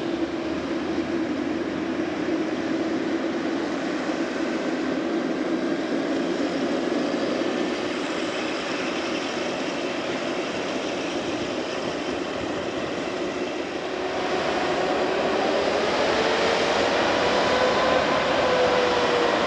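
Jet engines of a Boeing 787 Dreamliner, General Electric GEnx-1B turbofans, running with a steady whine. About fourteen seconds in they grow louder and rise in pitch as thrust is increased on the runway.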